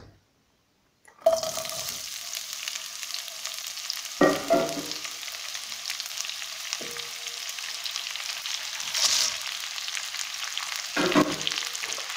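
Sliced white onion sizzling in hot vegetable and sesame oil in a nonstick frying pan. The sizzle starts suddenly about a second in as the onion hits the oil and goes on as a steady hiss. Near the end there is a brief clatter as shelled peanuts are tipped in.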